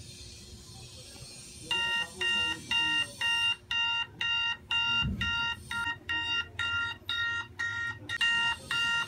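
Wake-up alarm beeping in a fast, even pulse of about two and a half short beeps a second, each beep several pitches sounding together; it starts nearly two seconds in.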